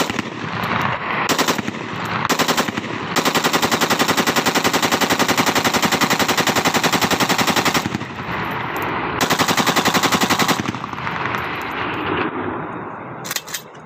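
Automatic rifle fired into the air in rapid bursts: two short bursts, then one long unbroken burst of several seconds, a pause, and another burst of about a second and a half. A rolling echo follows each burst.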